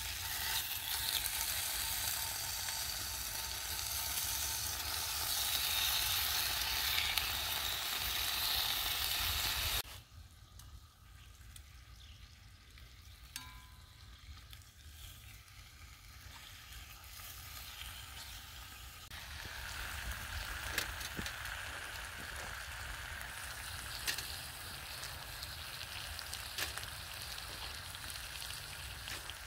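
Bacon sizzling in a cast iron skillet, loud at first and cutting off abruptly about ten seconds in. A quieter stretch with scattered clicks follows, and the sizzle builds again near the twenty-second mark.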